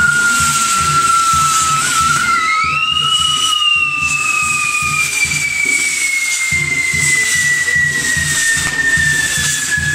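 Whistling fireworks on a burning castillo pyrotechnic tower: long, thin whistles that slowly fall in pitch, a new one sweeping up about three seconds in and then gliding down, over the hiss of spraying sparks. Music with a steady low beat plays underneath.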